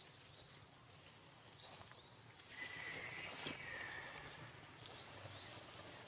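High-pitched animal calls: short chirps, with a longer, louder call starting about two and a half seconds in and lasting over a second.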